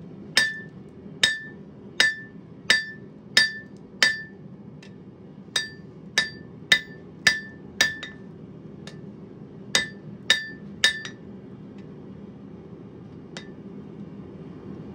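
Hand hammer striking a glowing-hot 3/4-inch square mild steel bar on an anvil, each blow with a bright metallic ring. The blows come in three runs of about one every two-thirds of a second, with short pauses between them, and a last light tap later on. These are half-face blows drawing out the bar's end in hot forging.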